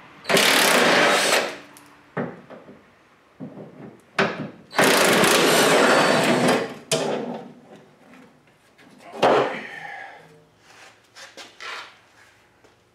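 Cordless power tool run in two long bursts of about one and two seconds, with a few short spurts and clicks between, backing out the gas tank strap bolts.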